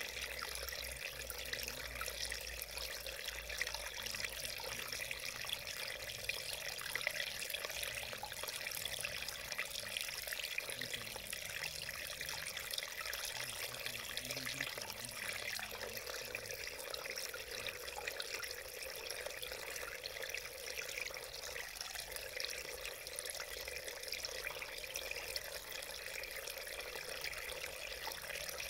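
Shallow mountain stream flowing over stones, a steady splashing burble of running water.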